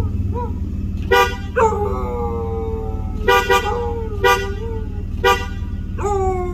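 A car horn gives short toots, one at a time and once as a quick pair, while a Shepsky (German shepherd–husky mix) answers with long howls that slide slowly down in pitch. A steady low hum runs underneath.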